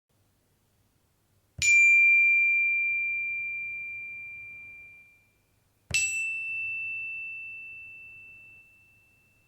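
Two separate dings, each a single struck ring that slowly fades; the second strike, about four seconds after the first, is slightly higher in pitch.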